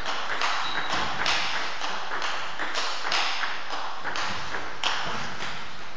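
Table tennis rally: the ball clicking off the bats and the table in quick succession, about two to three hits a second.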